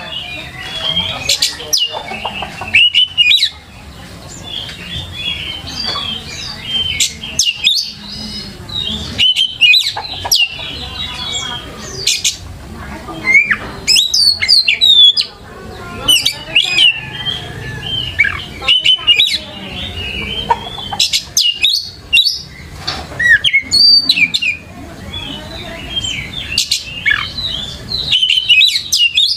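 Oriental magpie-robin (kacer) singing vigorously: a fast, varied run of loud whistles, trills and sharp rising and falling notes, broken by short pauses.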